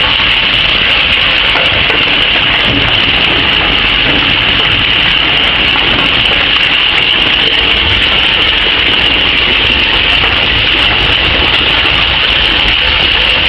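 Scrap-metal shredding line running: steady, unbroken machine noise with a bright hiss in the upper range and no distinct impacts.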